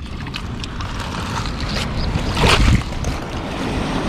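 Wind buffeting the microphone over the wash of the sea, with a louder burst of noise lasting about half a second, about two and a half seconds in.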